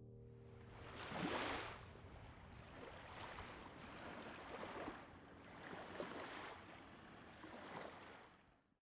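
Small waves lapping quietly on a pebbly lake shore: a soft wash that swells and ebbs about every second and a half, cut off suddenly near the end.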